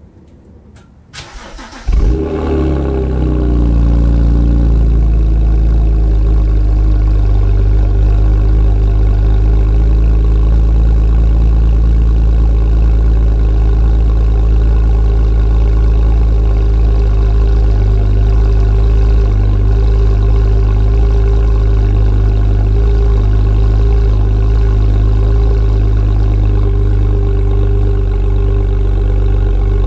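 BMW E90 328i's inline-six cold-started through a custom sport exhaust: the starter cranks briefly, the engine catches about two seconds in with a sharp flare, then settles within a few seconds into a steady, loud idle.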